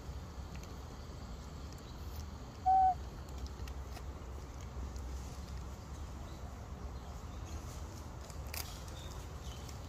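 A single short, clear coo of about a third of a second from a baby macaque, about three seconds in, over a steady low rumble.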